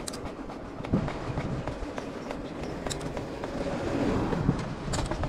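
Mountain bike rolling along a paved lane: tyre rumble and wind on the microphone, with frequent small clicks and rattles from the bike.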